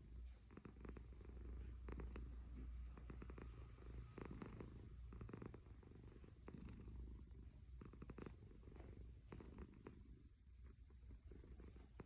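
A cat snoring: a faint, low, steady rumble.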